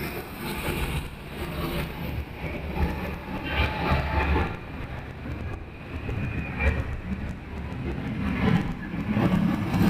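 Low, uneven rumble of a car driving through city traffic, picked up by a camera mounted on the car's roof, with wind and road noise rising and falling.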